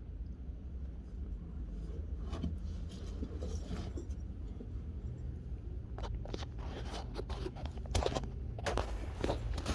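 Scraping and rustling handling sounds on rock, sparse at first and coming thick and louder from about six seconds in, over a steady low rumble of the cave's draft blowing on the microphone.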